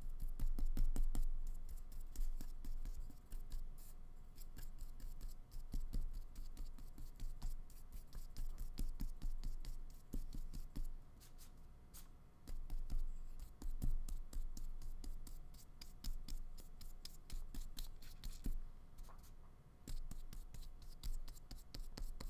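Flat paintbrush scrubbing acrylic paint onto paper in many short strokes, a dry, uneven scratching of the bristles.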